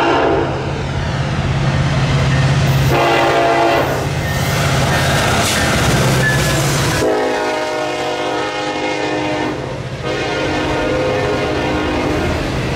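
Norfolk Southern diesel locomotive passing close by, sounding its air horn in several blasts: one ending just after the start, a short one about three seconds in, then two long ones. Its engine drone is loud until it goes by about seven seconds in, after which the autorack cars' wheels roll past.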